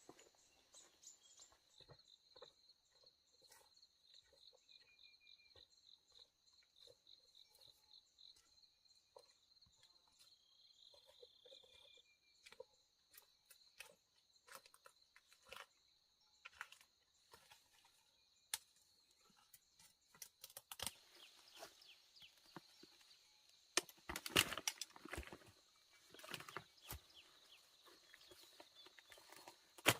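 Insects chirping steadily in a high, pulsing drone, with scattered light knocks and rustling that grow louder and busier about two-thirds of the way through.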